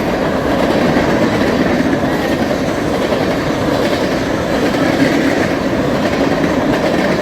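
BNSF mixed freight train passing at speed, its cars rolling by with a steady, loud clatter of steel wheels on the rails.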